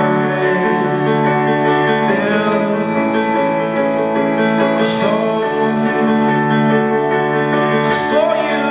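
Slow music: a singing voice over held chords from a keyboard instrument.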